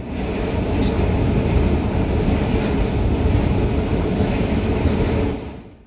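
Loud, steady rumble of a metro train running, with no distinct wheel rhythm. It starts abruptly and fades out in the last half-second.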